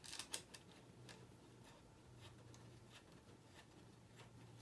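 Near silence with a few faint clicks and ticks, mostly about the first half second, from an aluminium accessory clamp being handled and fitted onto a gimbal handle, over a low steady hum.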